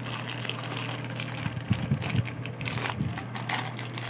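Clear plastic packaging crinkling and rustling in the hands as a small plastic box is unwrapped, with a few sharper crackles about two seconds in, over a steady low hum.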